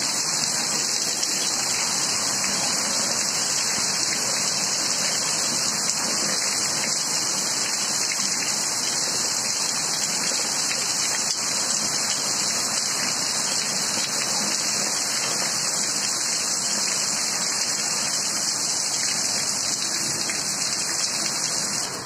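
Heavy rain pouring down steadily: a loud, even hiss of rainfall.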